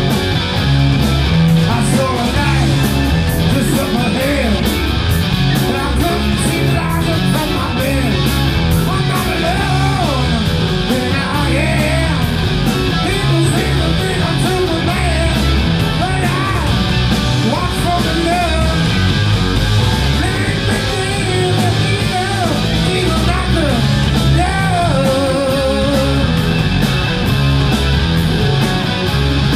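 A live rock band playing: a man sings into a microphone over electric guitars, bass guitar and drums with cymbals. About 25 s in a held note wavers.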